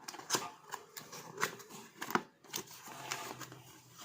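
A small speaker's retail box being opened by hand: an irregular run of sharp clicks, scrapes and rustles of the packaging.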